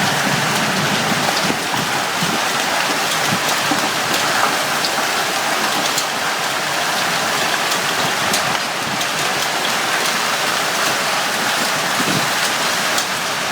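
Heavy hailstorm: hail and rain pounding down steadily, with scattered sharper cracks of single hailstones striking.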